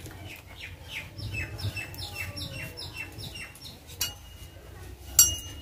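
A bird calling a run of about ten quick falling whistled notes, roughly three a second, for the first three seconds. Near the end come two sharp metallic clinks, the second louder.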